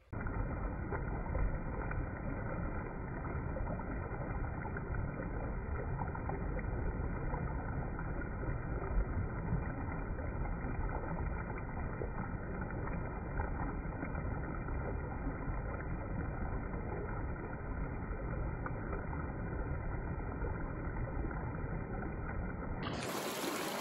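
Shallow stream pouring over a low rocky ledge: a steady, muffled rush of running water, with music starting right at the very end.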